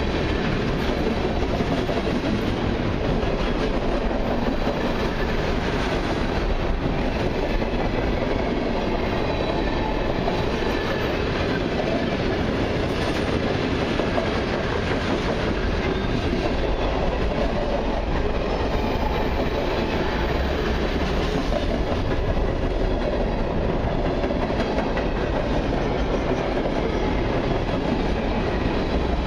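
Freight train cars (tank cars and covered hoppers) rolling past at steady speed: steel wheels on rail making a continuous, even noise with no break.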